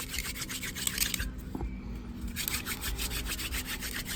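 Hand-drill friction fire: a mule fat spindle spun fast between the palms, grinding in the hearth notch with a rapid, even rubbing that breaks off for about a second midway. The hearth is smoking and about to form a coal.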